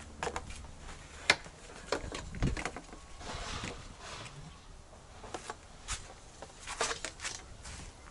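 Metal clamping ring and plastic lid of a plastic barrel being undone and lifted off: scattered sharp clicks, knocks and scrapes, the sharpest about a second in, with a softer rustle in the middle.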